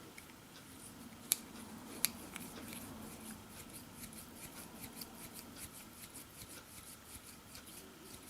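Stiff, freshly oiled blade of a Victorinox Pioneer Swiss Army knife being worked open and shut over and over, giving a run of faint metallic clicks several a second. Two sharper snaps come a little over a second and about two seconds in.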